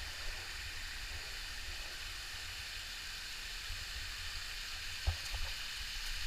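Steady rush of flowing water in a shallow hot-spring stream, with a low rumble underneath and a single knock about five seconds in.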